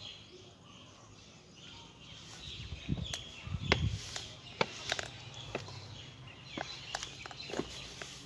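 Footsteps on a stone floor: irregular sharp clicks and a couple of low thumps, starting about two seconds in. Small birds chirp faintly in the background at the start.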